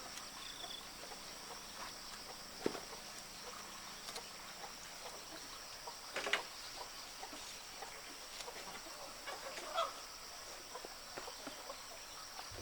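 Chickens clucking now and then over a steady high hiss, with a few sharp snaps or knocks scattered through.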